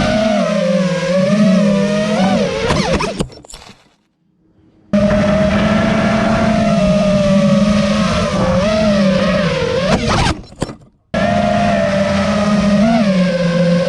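FPV quadcopter's brushless motors and propellers whining, the pitch wavering up and down with throttle. The sound breaks off twice, about 3 and 10 seconds in, with a sharp knock and a quick pitch swoop typical of a crash, then starts again at full whine.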